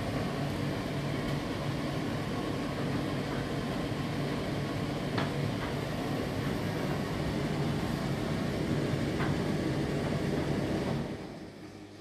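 Indesit IDC8T3B condenser tumble dryer running its cooldown phase, the drum and fan motor turning steadily with a few light ticks. Near the end the motor cuts out and the noise drops sharply to a faint hum.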